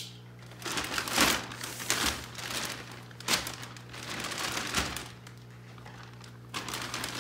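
Large clear plastic bag crinkling in irregular bursts as it is pulled open and handled, with a quieter pause about five seconds in. A steady low hum runs underneath.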